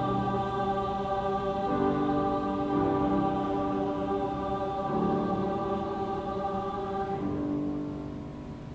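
Mixed choir singing held chords that change every couple of seconds, ending the piece; the final chord fades away near the end.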